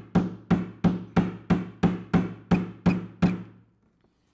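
Claw hammer driving a small nail into a wooden bracket, a steady run of about three blows a second, each with a short woody ring. The hammering stops a little after three seconds in.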